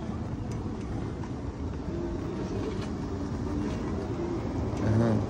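Steady low rumble of outdoor city background noise, with faint voices and a brief louder low swell near the end.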